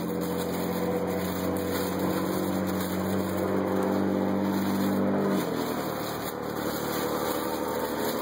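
A motor running with a steady low hum whose tone shifts about five and a half seconds in.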